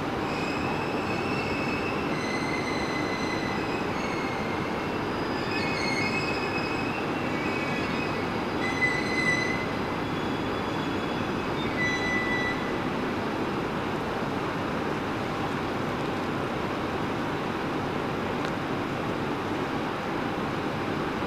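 701-series electric train pulling slowly into the station, its wheels squealing in several high, shifting tones that die away about twelve seconds in, over a steady rumble.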